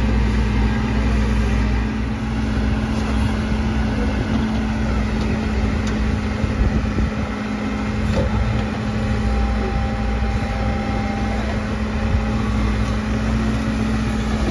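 Diesel engine of a Bull backhoe loader running at a steady pitch while its rear backhoe arm digs.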